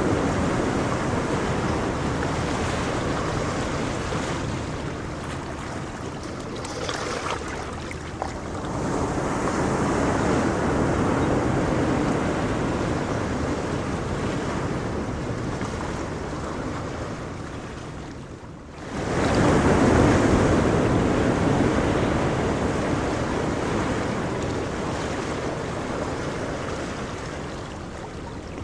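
Ocean surf: waves rolling in and washing back, the sound swelling and fading slowly. A brief lull comes about two-thirds of the way through, followed by a wave breaking loudly.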